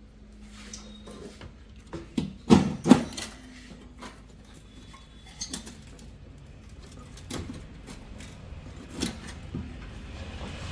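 Scattered knocks and clinks of metal parts and tools being handled inside a microwave oven while its magnetron is being swapped, with two loud knocks in quick succession about two and a half seconds in and a few lighter ones later.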